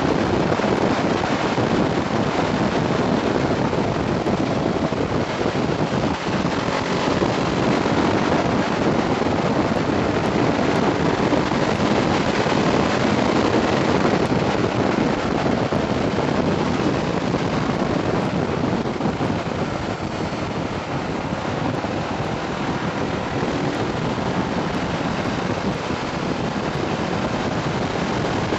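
Steady wind rush on the microphone of a moving motorcycle, with engine and road noise beneath it.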